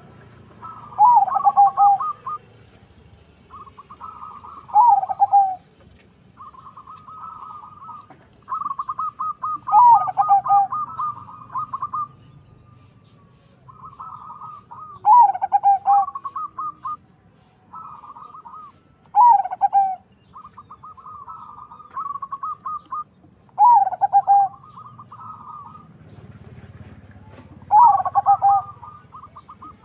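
A crossbred zebra dove (perkutut, local × Bangkok strain) cooing: about seven phrases, each of quick rattling notes ending in a loud falling coo, repeated every four to five seconds.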